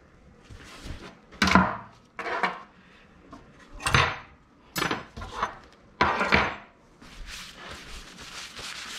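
Metal motorcycle fork parts and hand tools being handled and set down on a wooden workbench: about five separate clinks and knocks, then a soft rubbing sound near the end.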